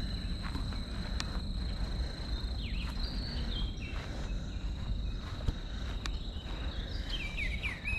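Insects trilling: one steady, unbroken high buzz. A bird gives a few short falling chirps about three seconds in and again near the end. A low rumble sits underneath.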